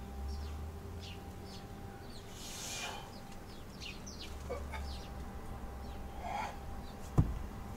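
Forceful breaths of a man doing kettlebell snatches, two sharp exhalations a few seconds apart, while birds chirp steadily around him. A single heavy thud about seven seconds in, the loudest sound, as the kettlebell comes down onto the grass.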